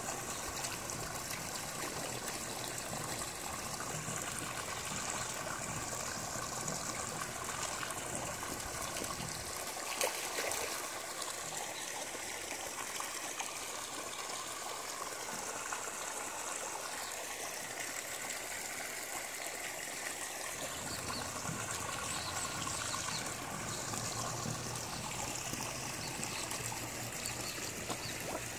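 Water pouring steadily from the pond filter's return pipe and splashing onto the surface of a koi pond. A single brief knock about ten seconds in.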